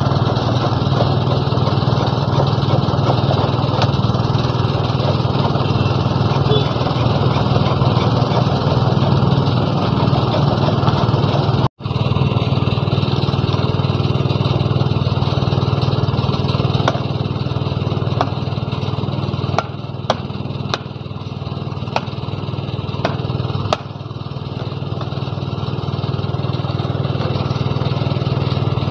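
A small engine running steadily, with several sharp clicks and taps over it in the second half.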